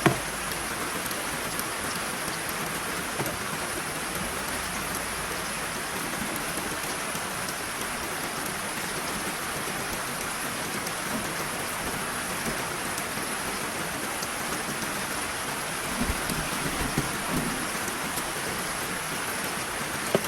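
Heavy rain falling steadily, a dense even hiss of rain on surfaces. A sharp knock right at the start and a few low thumps about three-quarters of the way through.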